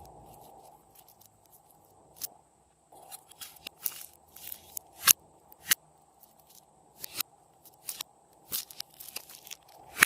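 Slime being squeezed and worked by hand, giving irregular sharp pops and crackles, sparse at first and then coming thick and fast.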